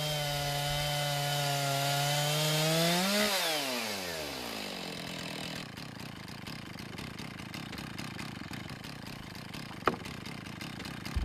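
Chainsaw mill cutting a log: a large chainsaw running at full throttle, its pitch creeping up slightly, then the revs fall away sharply about three seconds in and the saw runs on more quietly. A single sharp tick near the end.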